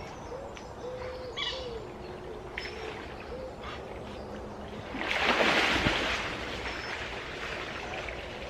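Soft, low, repeated hooting calls in the first two seconds, then a loud splash of river water lasting about a second and a half, about five seconds in.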